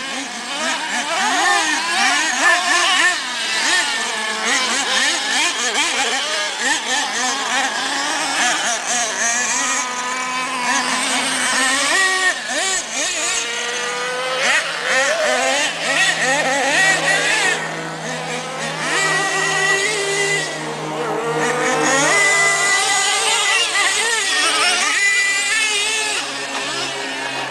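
Several small nitro engines of RC monster trucks revving up and down together, in rising and falling whines that overlap throughout.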